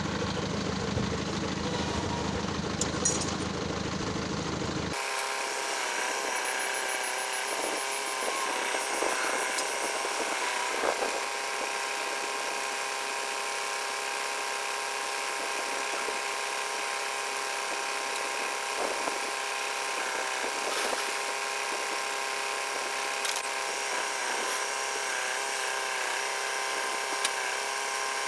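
A motor running steadily with a hum of several held tones. About five seconds in, the deep rumble drops out abruptly and the higher, whining tones come forward.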